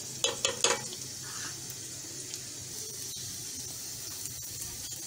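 Chopped garlic sizzling in a little hot ghee in a non-stick frying pan as it lightly browns, with a steady hiss. A silicone spatula stirs through it, with three quick loud scraping strokes in the first second.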